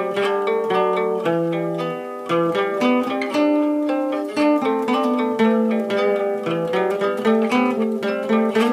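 Old Soviet-made steel-string acoustic guitar picked with a plectrum: a fast improvised run of single notes and small chords, several notes a second. The strings are old and due for replacing.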